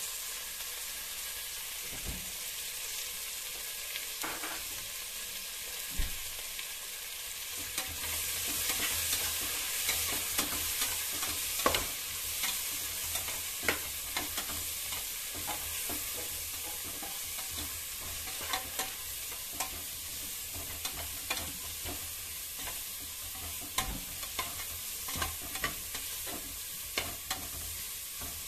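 Sliced onions with turmeric frying in oil and ghee in an aluminium pressure cooker: a steady sizzle, with a spatula scraping and knocking against the pot. The stirring knocks come more often from about eight seconds in.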